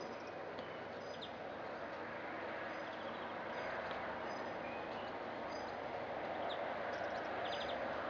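Small songbirds giving scattered short high chirps, with a quick run of ticking notes about three seconds in and another near the end, over a steady rushing background noise.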